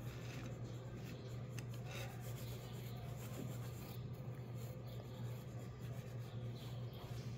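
Wooden pencil scratching on paper in short strokes during drawing, over a steady low hum.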